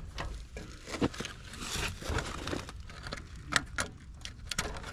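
Light rustling and a few sharp clicks of low-voltage thermostat wires being handled and fitted to a heat pump's defrost control board.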